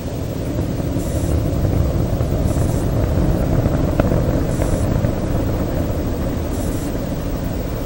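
Rocket launch rumble: a deep, steady rumble that swells over the first couple of seconds and then slowly eases off, with a faint crack about four seconds in.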